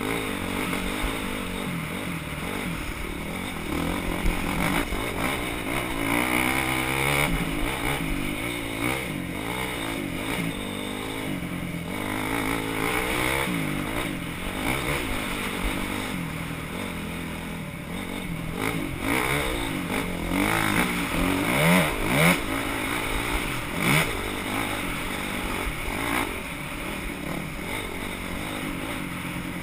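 Off-road scramble motorcycles racing round a dirt course, their engines revving up and down as riders open and shut the throttle. The loudest passes come about three quarters of the way through.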